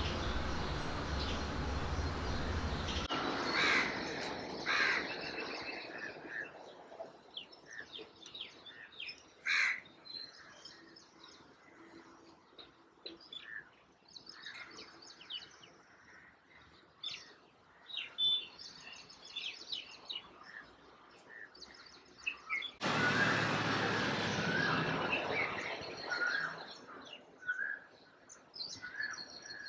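House sparrows chirping: many short, sharp chirps at irregular intervals. A steady rushing background noise is loud in the first few seconds, stops abruptly, and returns about three-quarters of the way through.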